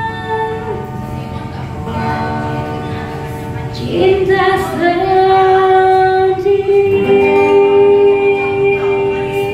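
A woman singing a slow pop ballad into a microphone, holding a long, loud note from about four seconds in.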